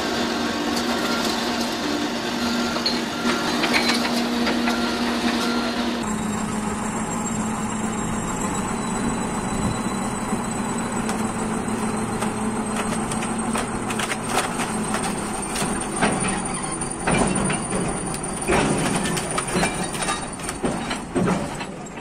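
Heavy diesel machinery running: first a backhoe loader's engine with a steady hum, then a crawler bulldozer's engine with a steady high whine and repeated metallic clanks and knocks from its steel tracks as it climbs a trailer's loading ramps, heaviest near the end.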